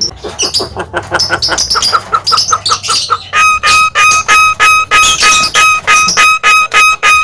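Javan myna (jalak kebo) in full song: a varied run of chirps and twitters, then harsh, evenly repeated calls at about four a second.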